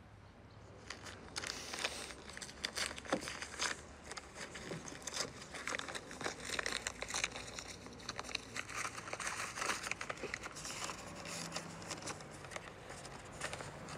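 A folded sheet of paper being unfolded and handled: irregular rustling and crinkling in quick crackles, starting about a second in.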